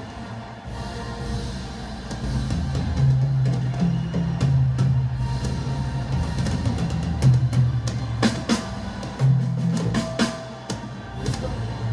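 Live rock band playing, with a strong bass line that moves from note to note under drums, and a run of sharp hits in the last few seconds.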